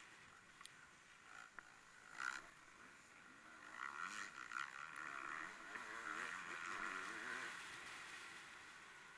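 Faint racing engines revving up and down, louder from about four seconds in and fading again near the end.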